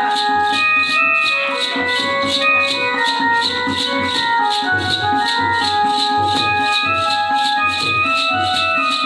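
Casio electronic keyboard playing a quick melody for Jakhadi dance, over a steady rhythm of high ticks and low beats.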